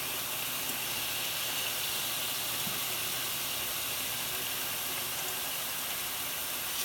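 Marinated chicken pieces sizzling in a stainless steel frying pan, a steady, even hiss.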